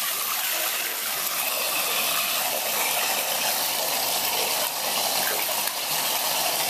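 Bathtub faucet running steadily, its stream of water pouring and splashing into the tub.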